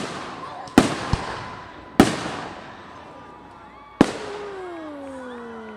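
Aerial fireworks shells bursting overhead: several sharp booms a second or two apart, the last about four seconds in, each trailing off in a long echo. After the last boom a long tone slides slowly down in pitch.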